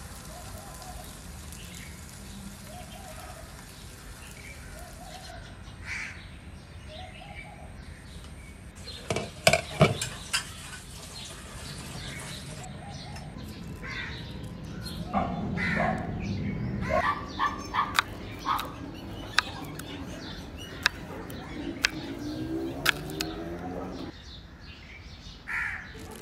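Bread frying in a pan with a steady sizzle that cuts off abruptly twice, with short calls repeating every second or two. Later birds calling, and a run of sharp clicks and rustles.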